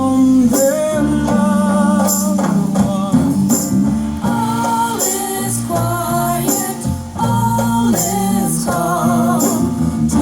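Live music at a sound check: singing with a wavering vibrato over a steady bass accompaniment, with tambourine strikes.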